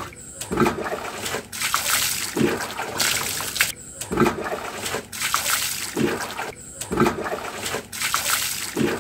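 Water poured from a plastic mug over a wet long-haired dog standing in a plastic tub, splashing into the tub and running off onto a concrete floor as the dog is rinsed. It comes in several long pours broken by brief pauses.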